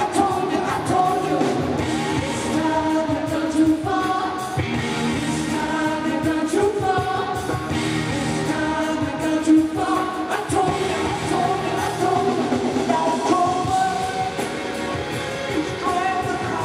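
A live rock band playing, with electric guitars, bass and drums under a man's lead vocal, heard across a large arena.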